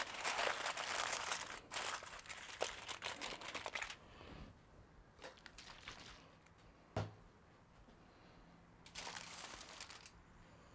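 Aluminium foil crinkling as it is folded and crimped around a rack of ribs, dense and busy for about the first four seconds, then stopping. About seven seconds in there is a single knock, and a short rustle follows near the end.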